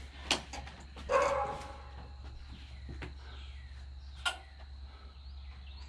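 A dog barks once about a second in, among a few sharp knocks.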